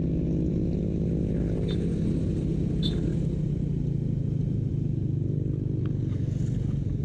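Small motorcycle engine idling steadily, with an even, unchanging note.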